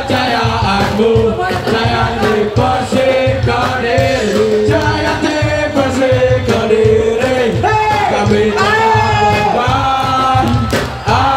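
Ska band playing live, with sung vocals over a steady drum beat.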